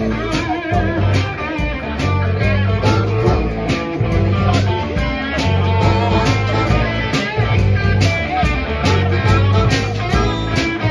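Live rock band playing an instrumental passage: electric guitar lines over a repeating bass figure and drums keeping a steady beat.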